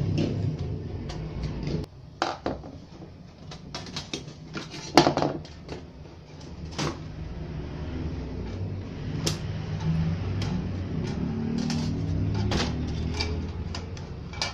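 Scattered clicks and knocks of metal chassis parts and a small circuit board being handled as a Sony VCD component is taken apart, the loudest knock about five seconds in. A low rumble sits underneath, drops away about two seconds in and comes back later.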